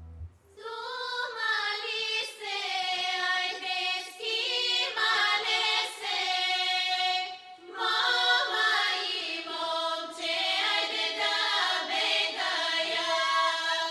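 Bulgarian women's folk choir singing in two long phrases with a short break about halfway through.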